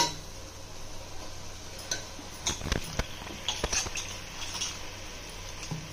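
A few scattered light clinks and knocks of kitchen utensils against cookware, mostly in the middle of the stretch.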